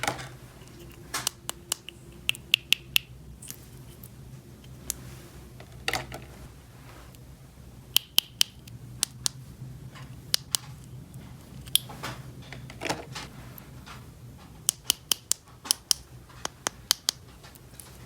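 Small plastic toy pieces being handled, giving irregular sharp clicks and taps, some in quick runs of several, over a low steady hum.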